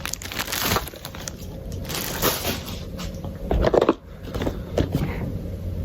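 Cardboard GoPro packaging being handled as the box is slid out of its sleeve: a few short scraping and rustling sounds, the loudest a little past the middle.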